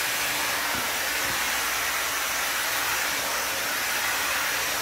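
5-in-1 ionic blow dryer brush with its paddle brush head running, a steady rush of air from its high-speed motor.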